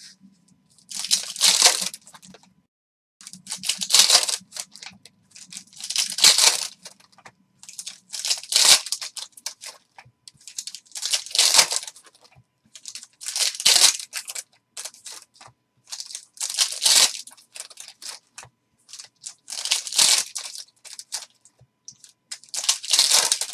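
Foil wrappers of Panini Prizm retail basketball card packs being torn open one after another: about nine crinkling rips, roughly one every two and a half seconds.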